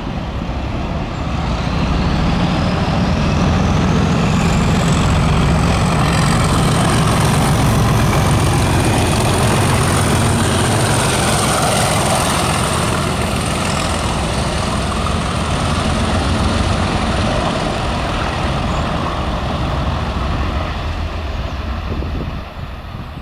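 Two British Rail Class 37 diesel locomotives passing while working hard under power ("thrash"). Their English Electric V12 engines run loud and deep, with a turbocharger whistle that rises in pitch over the first few seconds and then holds. The noise builds, peaks as the locomotives pass, and drops away near the end.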